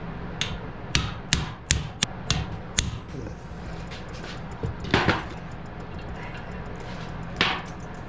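Metal pipe being struck with a hammer to drive a 6201 ball bearing onto the shaft of an air-conditioner fan motor clamped in a vise. There are about seven quick sharp metal knocks in the first three seconds, a louder close double knock about halfway, and one more near the end.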